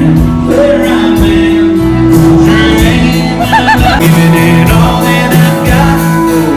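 Country band playing with a male lead singer, loud and continuous.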